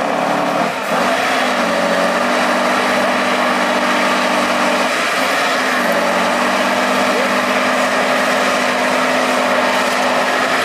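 Tatra 813 trial truck's diesel engine running hard as the truck crawls across a steep side slope. The engine note holds steady, with brief changes in pitch about a second in and again around five seconds.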